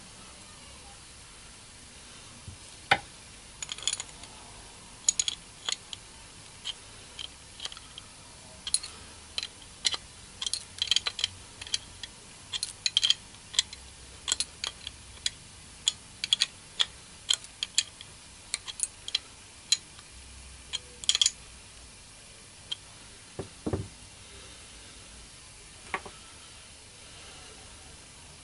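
Small metal parts of an air blow gun clicking and tapping as they are handled and fitted by hand: many short, sharp clicks in irregular clusters, thinning out after about twenty seconds.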